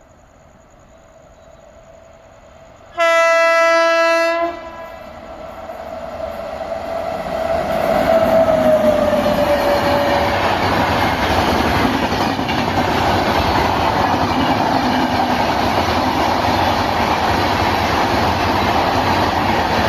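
Locomotive horn giving one loud blast about three seconds in, lasting about a second and a half. The train then comes up and runs past with a loud, steady rush of wheel noise and rail clatter, while a fainter horn tone slides down in pitch between about eight and ten seconds.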